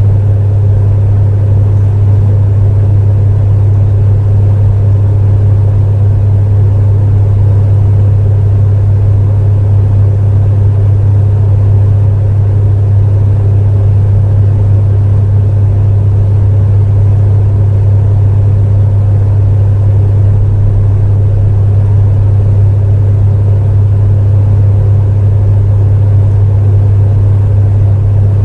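Space heater running steadily: a loud, unchanging deep hum with a softer rushing noise over it.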